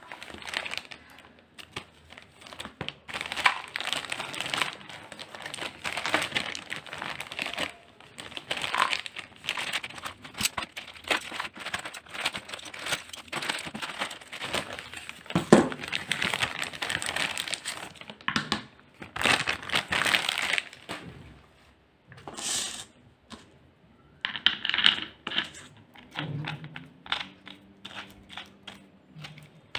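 Clear plastic packaging bag crinkling and rustling as it is handled and a sanding pad and sandpaper discs are pulled out of it. In the last several seconds there are lighter scattered clicks and taps from handling the plastic backing pad.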